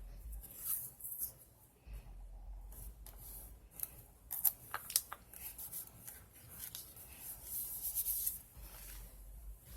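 Scissors snipping paper, with crisp paper rustling and a few sharp clicks about four to five seconds in, over a low steady hum.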